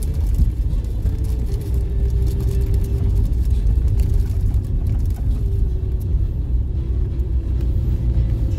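Car cabin noise while driving slowly: a steady low rumble of tyres and engine, with a faint steady hum above it.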